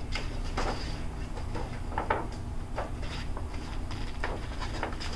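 Pages of a large picture book being handled and turned, with a few brief soft paper rustles over a steady low background hum.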